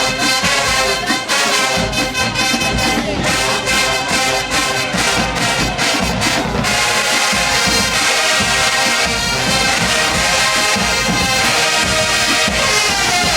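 Show-style marching band playing loud brass with drums. It plays sharp, punched rhythmic hits for about the first half, then moves into held brass chords.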